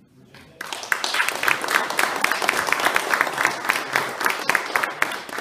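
A small audience applauding, starting about half a second in, with sharp single claps from someone close by standing out.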